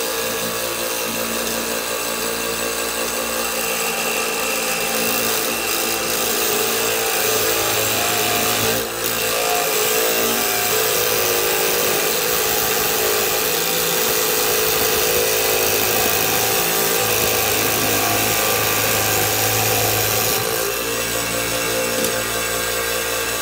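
Vintage Jig Saw Jr. electric toy scroll saw running steadily as its blade cuts through a wooden paint stirrer. The blade works slowly through a thicker, denser stretch of the wood.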